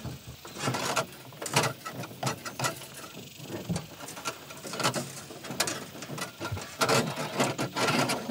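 Irregular scraping, rustling and sharp clicks of a wire being fed by hand through a rigging tube inside a jon boat's hull, with body movement on the deck.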